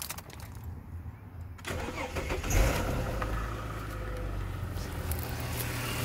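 Car engine being started: a few faint clicks, then the starter cranks from about a second and a half in, the engine catches loudest about two and a half seconds in and settles into a steady idle.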